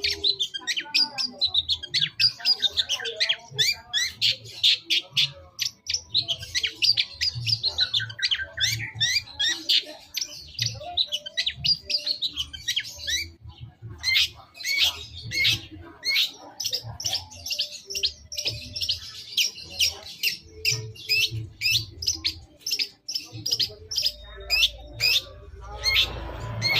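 Long-tailed shrike (cendet) singing: a fast, varied run of sharp chattering notes and short downward-sweeping calls, with a brief pause about halfway. A low background rumble comes in near the end.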